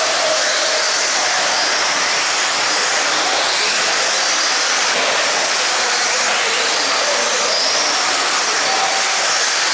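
Several 1/10-scale electric RC buggies racing on an indoor dirt track: a steady high hiss of motors, gears and tyres, with faint motor whines rising and falling as the cars speed up and slow down.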